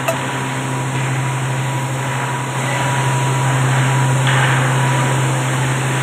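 Kraft paper machine and mill drives running: a loud, steady drone with a deep constant hum under an even hiss, and a short knock right at the start.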